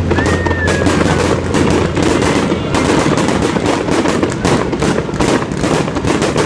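Fireworks display: aerial shells bursting in rapid, dense crackling and banging, with a whistle gliding slowly down in pitch over the first two seconds.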